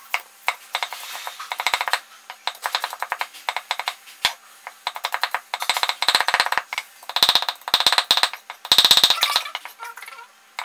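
Meat cleaver rapidly chopping shallots and garlic on a thick round wooden chopping board: fast runs of sharp knocks, about ten a second, broken by short pauses, the longest and loudest runs in the second half.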